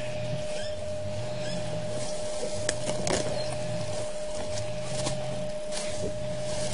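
African elephant feeding on grass close to the microphone: a few short, sharp snaps of grass being pulled and torn, over a steady electrical hum.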